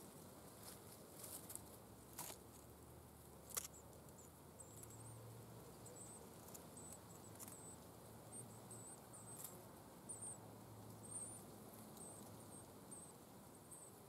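Faint, very high-pitched short squeaks from yellowhammer nestlings, repeating about once or twice a second as an adult arrives at the nest. A few sharp ticks of twigs come in the first few seconds.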